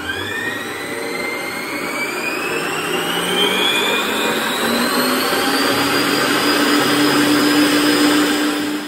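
Electric Acekool stand mixer beating egg whites at high speed, its motor running with a whine that climbs steadily in pitch as it spins up, over a whirring hiss of the whisk. It cuts off at the end.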